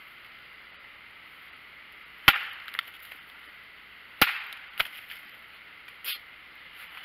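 Wood knocks: a tree trunk struck hard twice, about two seconds apart, each loud knock followed by a fainter one.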